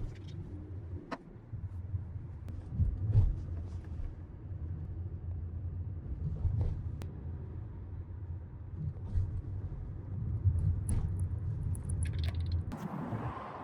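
Steady low rumble of a moving vehicle heard from inside, with a few sharp clicks; a brighter hiss rises near the end.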